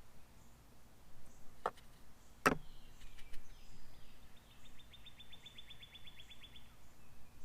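Two sharp knocks a little under a second apart, the second the loudest sound, over quiet outdoor background; a songbird then sings a fast, even trill of about eight notes a second lasting some two seconds, with faint bird chirps in between.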